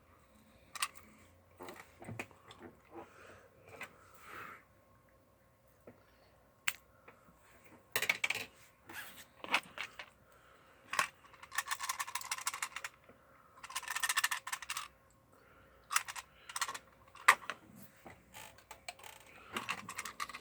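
Toy packaging being opened and handled: scattered clicks, crinkles and rustles of plastic and cardboard, with two rapid rattling spells of about a second each a little past the middle.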